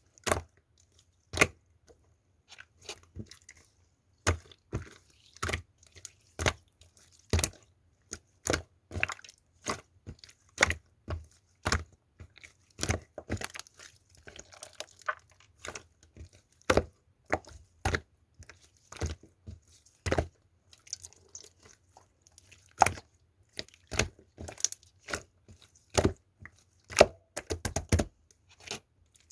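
Clear slime with crunchy 'glass shard' pieces being squeezed and pressed by hand, giving irregular sharp crunchy pops and crackles, one or two a second, with a quick cluster of pops near the end.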